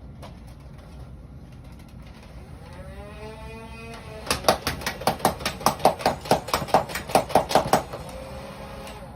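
Motorized Nerf blaster revving its flywheel motor with a rising whine, then firing a quick string of about fifteen clacking shots, roughly four a second, before the motor winds down.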